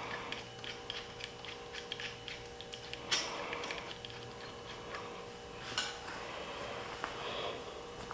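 Small metal hand tools clicking and ticking against a bicycle stem cap and its bolt during fitting: a quick run of light ticks, then two sharp clicks about three and six seconds in.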